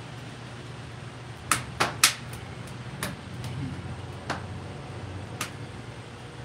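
Wood-fired rotisserie smoker running with its racks turning: a steady low hum with a handful of sharp clicks, three in quick succession about one and a half to two seconds in, the last the loudest, then a few single ones.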